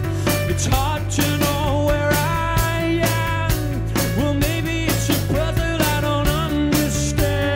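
A rock band playing live: a male lead vocal over sustained keyboard and bass tones, with a steady drum beat.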